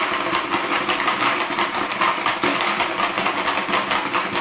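Rapid plastic clattering of a Hungry Dino marble game: several players hammer the plastic dinosaurs' levers so the heads snap out, with small plastic marbles rattling across the board.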